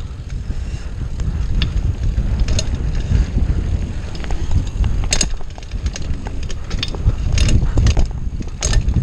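Wind buffeting the microphone as a bicycle is ridden along a bumpy dirt trail, with sharp rattles and knocks from the bike over the bumps, the loudest about five seconds in.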